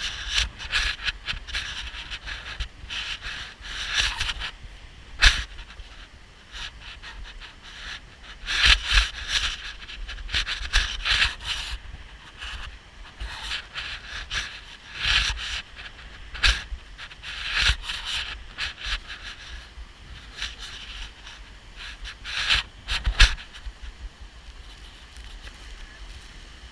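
A person breathing hard in irregular gusts while climbing a wet, slippery path, with a few sharp knocks along the way.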